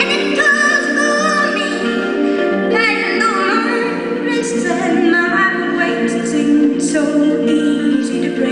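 Live music: a woman singing with a wavering vibrato over harp accompaniment.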